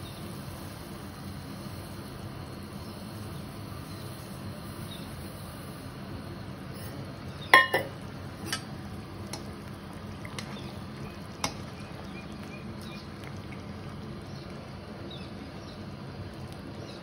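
Water with vegetables boiling in a steel kadai as upma is made, a steady bubbling hiss. A few sharp metal clinks of a utensil against the pan, the loudest about seven and a half seconds in.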